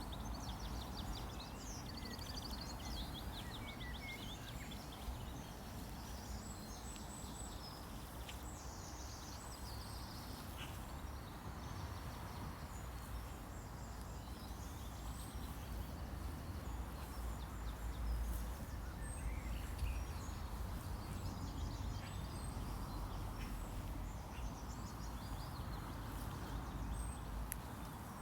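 Outdoor nature ambience: small birds chirping and trilling on and off over a steady low rumble.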